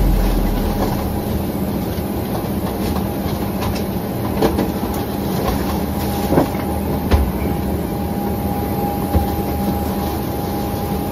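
Steady running noise inside a moving vehicle: an even rumble with a constant hum, and a few short knocks and rattles.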